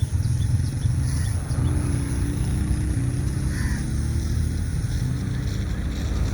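Steady low rumble of a running engine with a faint high whine above it.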